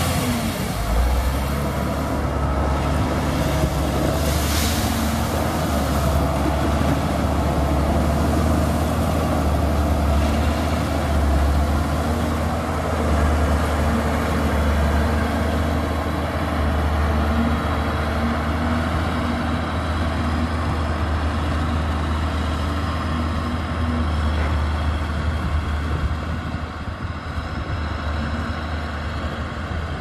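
Diesel engine of a motor grader running steadily under load as it pushes crushed gravel with its blade, with a deep steady hum; it grows quieter near the end as the grader drives away.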